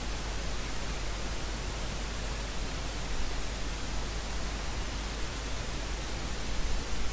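Steady hiss with a low hum beneath it: the noise floor of the recording, with nothing else standing out.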